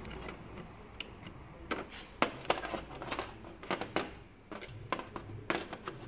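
Irregular clicks and taps of plastic connectors and cables being handled and plugged in against a TV's sheet-metal back chassis, a few close together at a time.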